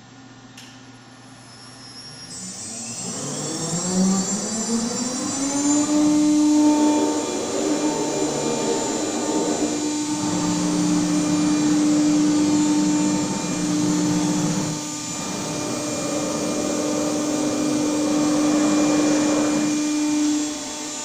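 A 5-axis CNC router starting up and running: a motor whine climbs in pitch over a few seconds, then holds steady and loud with a thin high ring above it, dipping briefly near the end.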